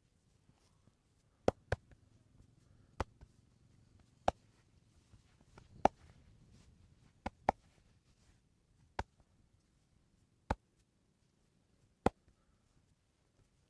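About ten sharp single clicks from the masseur's hands, coming at irregular intervals a second or so apart, a couple of them in quick pairs.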